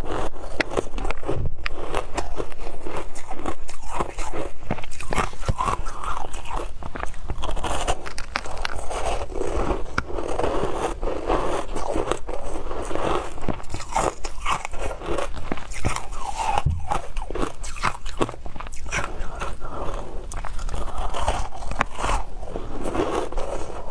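Shaved ice topped with passion fruit pulp being bitten and chewed: continuous crunching, thick with sharp crackles.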